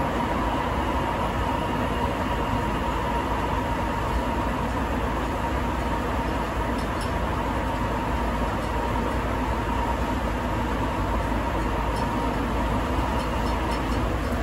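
Sapporo Municipal Subway Tozai Line rubber-tyred train running between stations, heard inside the car: steady running noise with a steady whine that fades out near the end.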